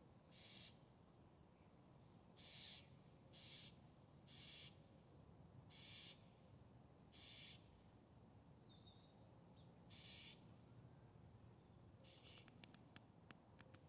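A cat hissing in about eight short breathy bursts at irregular intervals, with faint bird chirps in between.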